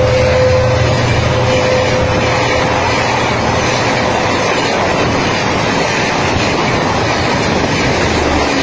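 Passenger train of Spanish-built coaches passing close at speed: a loud, steady rumble and rattle of wheels on the rails. The locomotive's horn trails off as a single lower note in the first three seconds.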